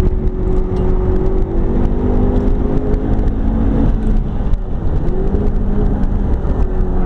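McLaren 12C's twin-turbo V8 heard from inside the cabin at track speed. The engine note holds fairly steady, dips briefly a little past halfway as the car slows for a turn, then climbs again as it accelerates out.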